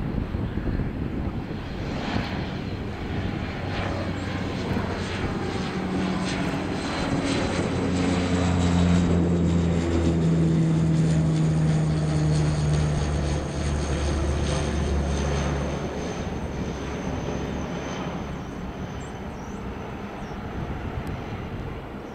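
De Havilland Canada Dash 8-102 twin turboprop climbing out after takeoff and passing overhead. The propeller drone grows louder to a peak about halfway through, its low tones drop in pitch as it goes by, and it then fades away.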